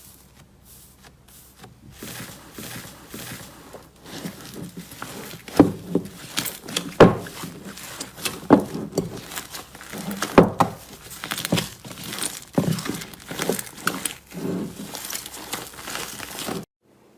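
Slime being squeezed and worked, giving a run of irregular crinkling, popping clicks. The clicks grow louder about four seconds in and stop suddenly near the end.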